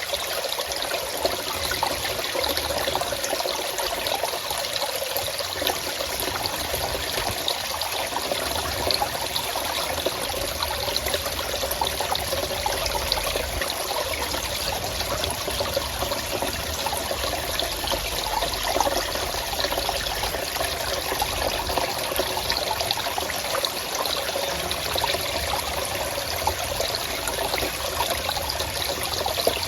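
Stream water flowing steadily, an even, unbroken rush.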